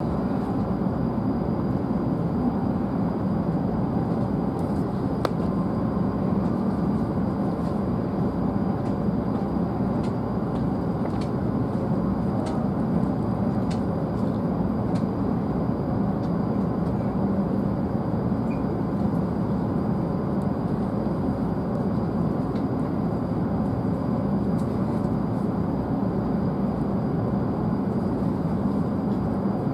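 Steady rumble and hum inside the passenger cabin of a W7 series Shinkansen train, with a few faint ticks scattered through it.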